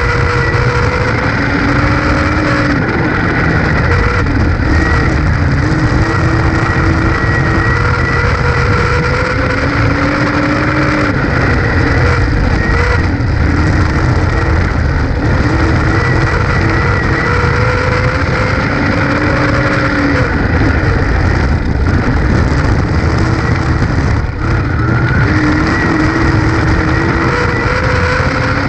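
Dirt-track race car's engine at racing speed, heard from inside the cockpit. It is loud and continuous, its pitch rising and falling in a repeating cycle about every eight to nine seconds.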